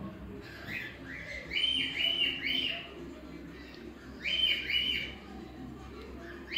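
A bird chirping in quick runs of short notes that rise and then hold. There is a run of about five near the start and a shorter run of three past the middle, over a low steady hum.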